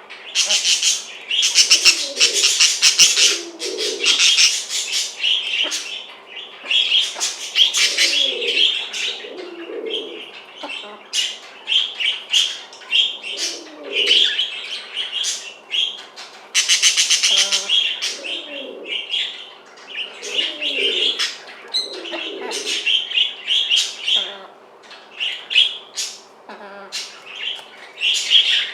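Budgerigars chattering and chirping without a break, the loudest sound, with low, wavering calls from a silkie chicken breaking in every couple of seconds, often in pairs.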